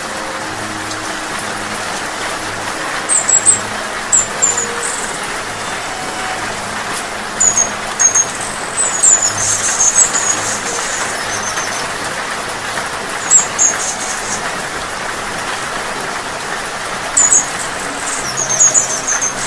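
High, thin, sharp chirps of a hummingbird, in short clusters every few seconds, over a steady hiss of rain.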